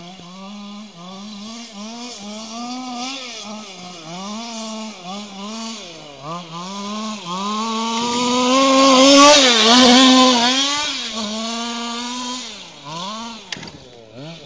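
Losi 5ive-B 1/5-scale RC buggy's Zenoah 290 two-stroke engine on its stock exhaust, revving up and down with the throttle as the buggy drives the track. It is loudest and highest-pitched as the buggy comes close, about eight to eleven seconds in, then drops back.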